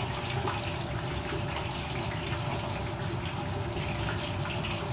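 A knife slicing thin pieces of crisp skin from a roast duck, making faint scraping and crackling strokes over a steady rushing background noise.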